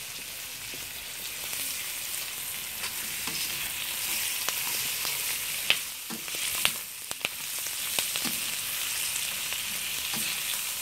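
Sliced onion, garlic and ginger sizzling in hot oil in a steel wok, stirred with a metal spoon. The spoon clicks and scrapes against the pan several times, loudest a little past halfway.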